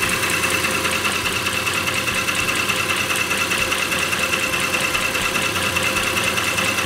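The Mercedes-Benz C-Class's 3-litre V6 engine idling steadily, heard from beneath the car, with a steady high-pitched whine over it. The engine is kept running while the automatic transmission's fluid level is set.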